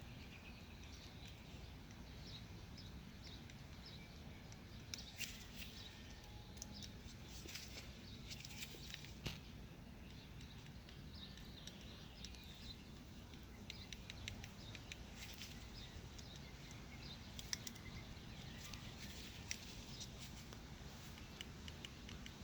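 Faint, irregular small clicks and taps from bench-testing a fuel injector by tapping battery leads to its terminals, with a low steady hum underneath. The test battery is running flat.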